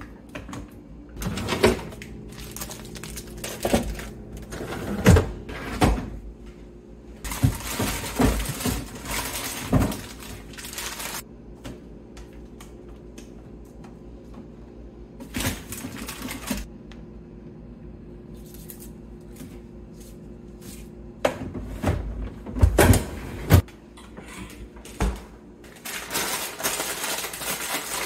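Groceries being handled and put away in a refrigerator: repeated knocks and clunks of containers, shelves and crisper drawers, with plastic bags crinkling in several stretches, over a low steady hum.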